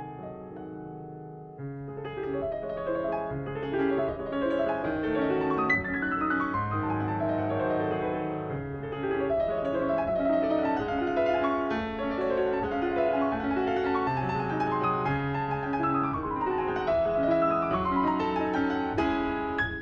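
Background piano music, with quick descending runs of notes.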